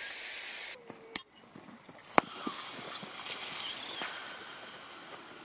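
Lithium-polymer battery cells venting in thermal runaway: a hiss of escaping gas that cuts off abruptly under a second in, two sharp cracks about a second apart, then a fainter hiss that swells and fades. The cells are pouring out smoke without catching fire.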